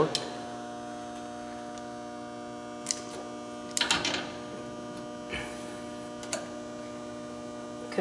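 Steady electrical hum, with a few short metallic clicks and rattles as a refrigerant gauge hose's brass fitting is handled and screwed onto a service port by hand. The loudest cluster of clicks comes about four seconds in.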